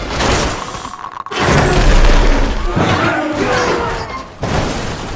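Film sound effects of a helicopter crashing down through a jungle canopy: a series of sudden crashing and smashing impacts, the heaviest with a deep boom about a second and a half in.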